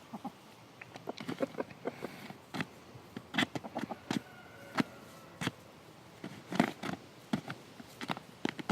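Chickens pecking and scratching at a bag of feed: irregular sharp taps and clicks, some in quick clusters.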